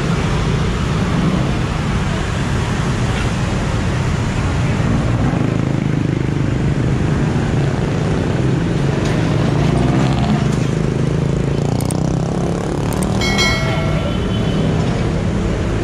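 Busy city-intersection traffic: motorcycles and cars running and pulling through, a steady engine rumble. A vehicle horn sounds briefly near the end.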